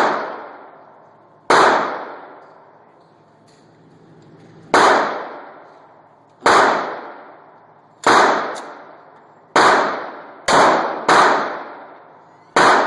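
Smith & Wesson M&P 40 pistol firing .40 S&W rounds, about nine shots at uneven intervals of one to three seconds, with a quicker pair near the end. Each shot is followed by a fading echo.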